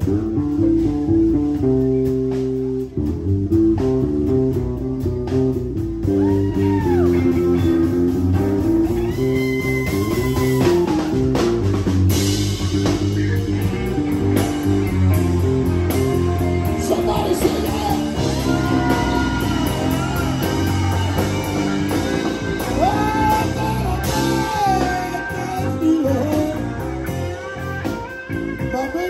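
Live blues band playing: an electric guitar lead with bent notes over electric bass, keyboard and drums. The cymbals get brighter and louder about twelve seconds in.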